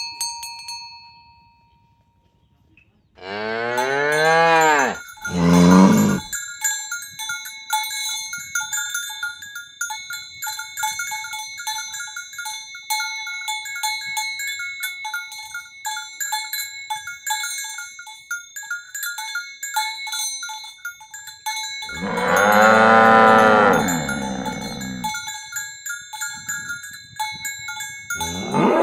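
Cattle mooing: a long moo about three seconds in, followed at once by a shorter one, another long moo near the 22-second mark, and one more starting at the very end. In between, cowbells on the walking herd clink and jingle steadily.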